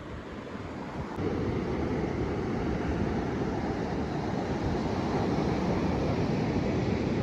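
Steady rushing noise of wind on the microphone over moving water, stepping up louder about a second in.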